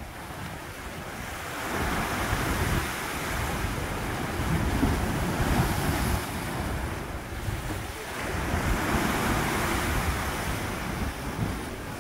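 Sea surf washing into a narrow rocky inlet beneath a rock arch, the foaming water swelling louder twice as successive waves surge in and drain back.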